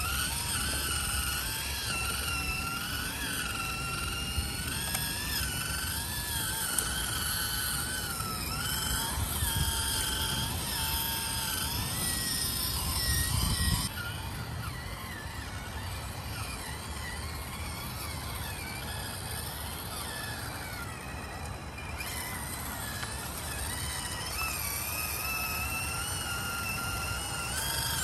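Small electric motor and gear train of a 1:18 scale RC crawler truck whining, the pitch rising and falling constantly with the throttle over a low rumble. The sound changes abruptly about halfway through and again later.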